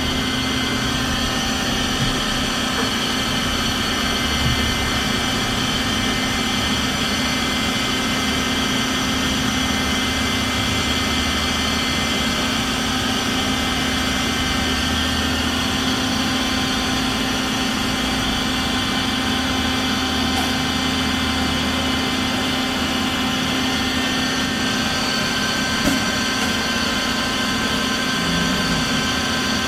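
Bridgeport FGC 1000 CNC vertical blade grinder running steadily: an even machine hum with several steady high-pitched whining tones over it.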